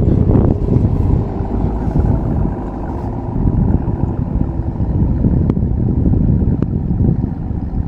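Low, steady rumble of a vehicle on the move, with two sharp clicks in the second half.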